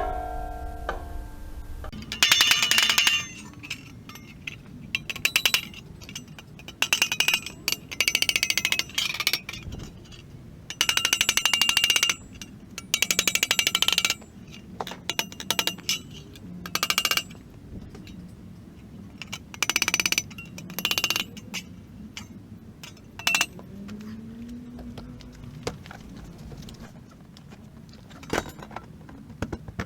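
Welding arc crackling in about a dozen short bursts, each under a second or so with pauses between, as sheet-metal floor panels are tack-welded. Brief music fades out at the very start.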